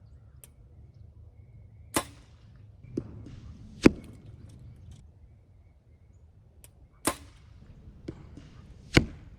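PSE Mach 33 compound bow shot twice, each release a loud, sharp snap about four and nine seconds in. Lighter clicks and knocks come about a second or two before each shot. A low wind rumble on the microphone runs underneath.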